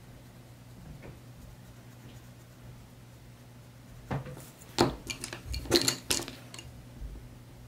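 Wooden coloured pencils clicking and clinking against one another and the desk as they are put down and picked up. The sound comes as a cluster of sharp knocks starting about four seconds in.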